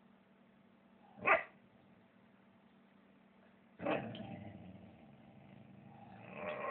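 Young Irish setter puppy giving two short barks, about a second in and again about four seconds in.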